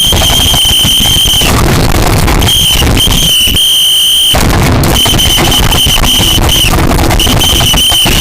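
A loud, shrill, high-pitched tone, alarm-like and held steady, sounds five times in stretches of uneven length with short gaps between them, over a rough, crackling rumble.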